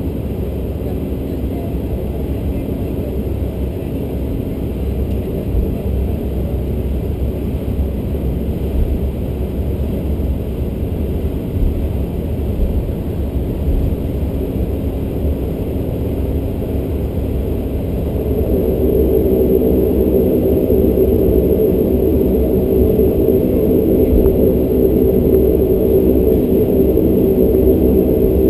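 Bombardier Dash 8 Q400's PW150A turboprop engines and propellers running during taxi, heard inside the cabin as a steady drone over a low rumble. About two-thirds of the way through it grows louder and its hum of several steady tones gets stronger as the engines pick up power.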